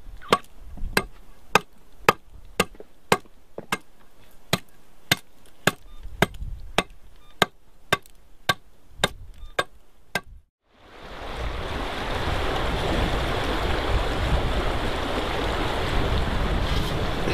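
Sharp knocks at a steady pace of about two a second, something struck again and again. About ten seconds in, the sound cuts to a steady rush of running water.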